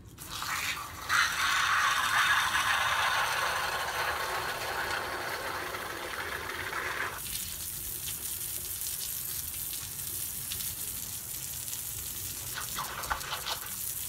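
Garden hose spraying water onto patio paving, a steady hiss. About seven seconds in the spray changes to a thinner, higher hiss.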